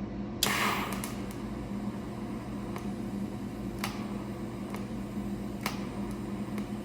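Welding arc from a CT520XD multi-process welder: it strikes about half a second in with a brief louder hiss, then holds a steady hiss with a few sharp pops, over a steady low hum.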